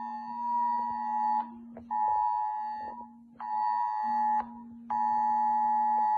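A mobile phone's emergency-alert tone (Spain's ES-Alert civil protection warning): a harsh two-tone beep repeating in a two-second blast followed by two one-second blasts, with half-second gaps. A lower steady buzz sounds beneath it.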